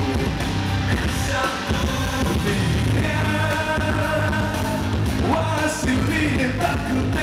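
Live rock band playing loud through a concert PA, with drums, bass and held melodic lines, and a voice singing over the band.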